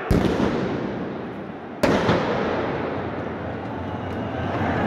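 Two loud firecracker bangs, one right at the start and another nearly two seconds in, each echoing and dying away slowly under the stadium roof.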